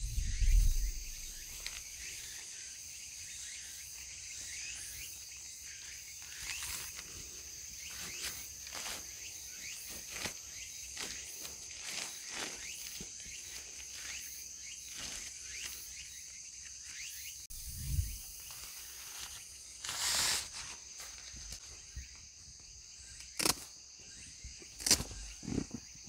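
Insects trilling steadily in the woods, a continuous high-pitched chorus, with scattered soft clicks and rustles and a dull thump about two-thirds of the way in.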